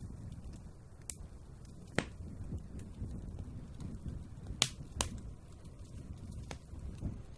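Wood fire burning in a fireplace, crackling with sharp pops about five times, the loudest around two seconds in and just past the midpoint, over a steady low rumble of flames.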